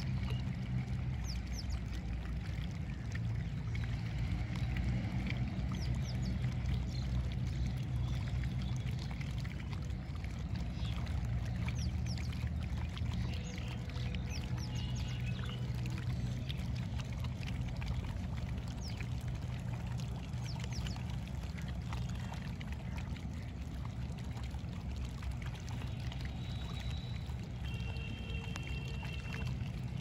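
Outdoor river ambience: a steady low rumble, with light water splashing and lapping from fish jumping at the river surface. Birds chirp now and then, with a couple of short whistled notes near the end.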